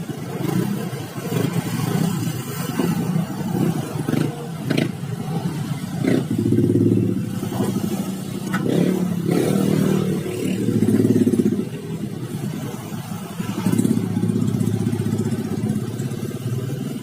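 An engine running, its level swelling and easing as it revs up and down, with a few clattering knocks.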